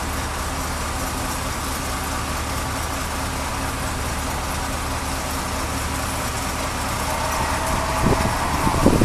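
Diesel engine of a Kobelco SK200 hydraulic excavator running steadily as it works a load, growing somewhat louder near the end.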